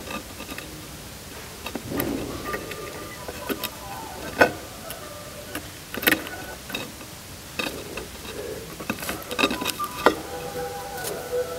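A 12 V DC geared motor wired to an amplifier output and used as a crude speaker: faint, thin tones of the audio signal come through, broken by repeated sharp crackling clicks.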